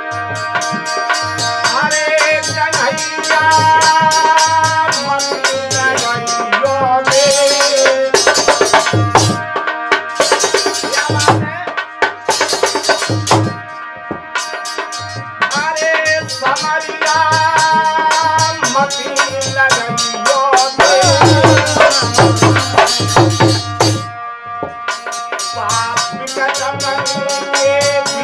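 Harmonium and dholak playing an instrumental interlude of a Hindi folk bhajan: the harmonium holds a reedy melody over steady dholak strokes, with several stretches of bright jingling percussion.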